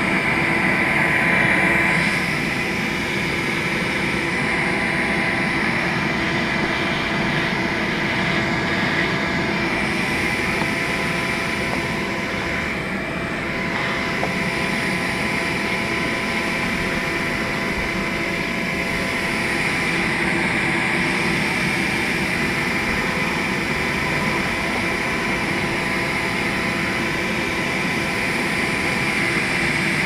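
A bee vacuum's motor running steadily with a whine, its hose sucking bees out of an opened wall cavity.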